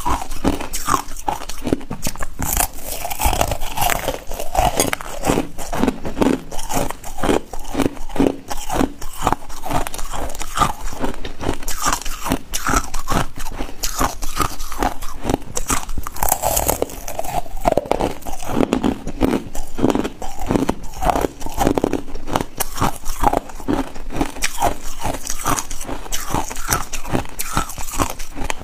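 Ice being bitten and crunched between the teeth, a rapid, continuous run of sharp cracks as the pieces are chewed.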